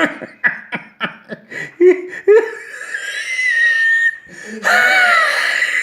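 Someone laughing hard: a quick run of short laughs, then high wheezing laughter that rises to a loud squeal near the end.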